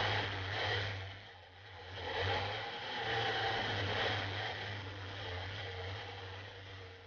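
250cc go-kart engine heard from on board, running hard, easing off about a second and a half in and then picking up again.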